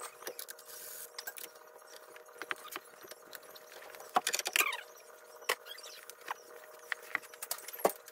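Scattered clicks, knocks and light clinks of hand work in a car's engine bay as the rubber air-intake tube is worked loose and pulled off the throttle body. There is a brief rising rubber squeak a little past four seconds in, over a faint steady hum.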